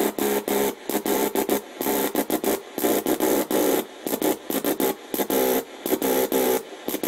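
AM radio speaker picking up a homemade spark gap transmitter: bursts of buzzing static switch on and off in irregular short and long pulses, like Morse code, as the telegraph key is pressed and released.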